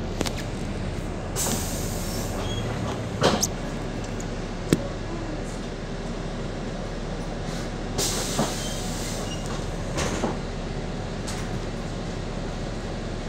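Double-decker bus engine idling while the bus stands at a stop, heard from inside on the upper deck, with rattles and a few sharp knocks from the body. Two short hisses of air come about one and a half and eight seconds in.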